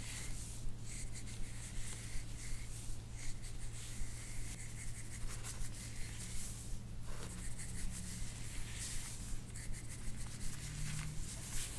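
Hands rubbing and stroking over skin and hair during soft-tissue work on the neck and head: an irregular soft, scratchy rubbing, with a low steady hum underneath.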